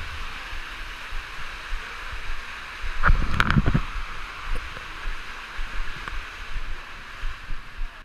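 Steady rush of falling and running water from a small waterfall and the stream feeding the pool, with a brief louder, rougher noise about three seconds in.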